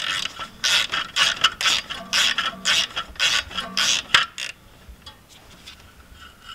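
Hand ratchet wrench turning a nut in quick back-and-forth strokes, about two clicking strokes a second, stopping about four seconds in.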